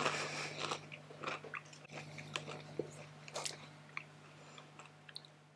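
Doritos tortilla chip being crunched and chewed: irregular sharp crunches that grow fainter and sparser as the chip is chewed down.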